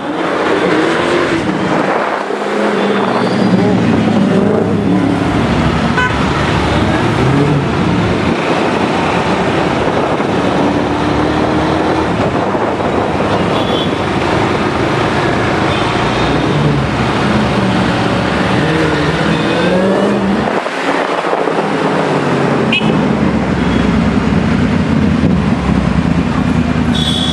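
Dodge SRT Hellcat's supercharged 6.2-litre V8 running and revving through city traffic, its pitch rising and falling several times, with traffic noise and occasional horn toots.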